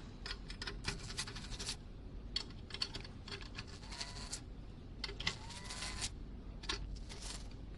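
Irregular small clicks, rattles and short scrapes of a screwdriver and of metal and plastic parts being handled as screws are taken out of a chartless recorder's case.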